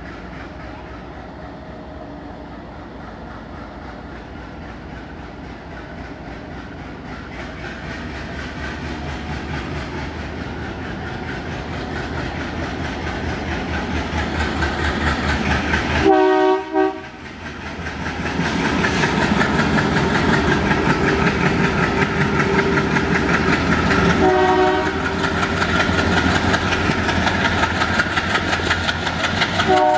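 ALCO WDG3A diesel locomotive's V16 four-stroke engine chugging, growing steadily louder as it approaches, with a short horn blast about halfway through. The sound then cuts to another WDG3A working hard, its engine throbbing loudly over the wheel clatter, with two more short horn blasts, one in the latter half and one at the very end.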